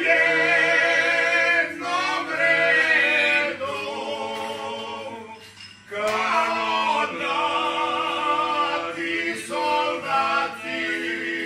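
A small group of men singing a Dalmatian folk song a cappella in parts, with first and second voices in harmony. They hold long notes and break briefly for breath about six seconds in.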